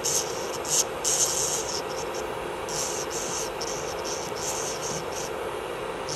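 Electric nail drill running with a steady hum, its bit grinding gel polish off a nail in short repeated passes, roughly one a second.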